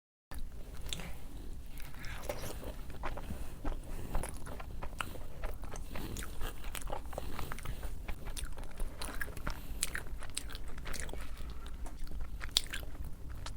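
Close-miked chewing of rice and fish, with many small irregular clicks, smacks and crunches over a steady low hum.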